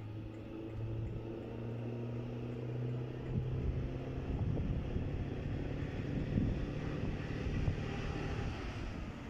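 Diesel engine of an approaching on-track maintenance machine, a steady low drone that grows gradually louder as it draws near.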